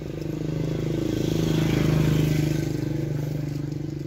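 An engine running, growing louder over the first two seconds and then easing off again.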